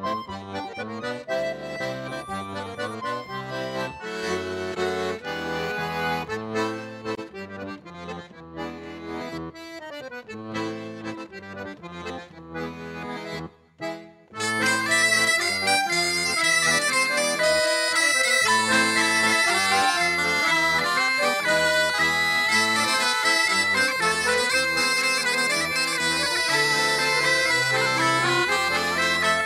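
Accordion playing a Breton dance tune. The music stops briefly about halfway, then a louder, brighter tune starts.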